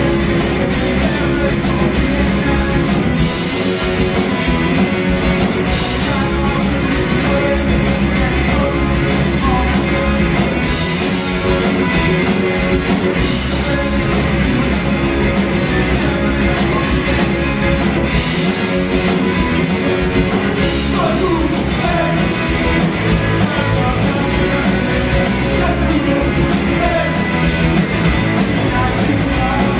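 Live rock band playing a fast, loud song, with distorted guitar, driving drums with constant cymbal hits, and singing.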